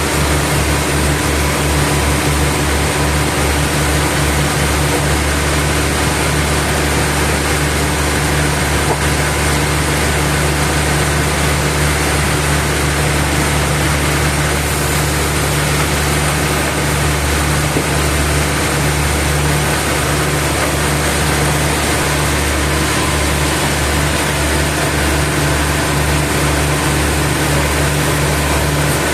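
Sawmill machinery's engine running steadily at an even speed, a constant low hum with a fast low pulse under a wash of mechanical noise.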